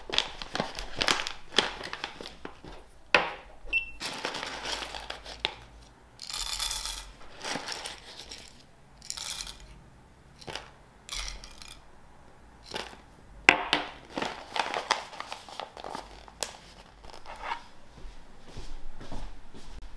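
Paper coffee bag crinkling as it is handled and opened, with coffee beans clattering as they are scooped with a wooden spoon and tipped into a ceramic cup. Uneven rustles broken by a few sharp clicks.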